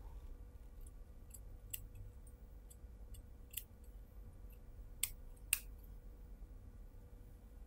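Tailor's shears snipping excess polyester batting from a sleeve seam allowance: a scattering of short, crisp snips, the two sharpest about half a second apart around five seconds in.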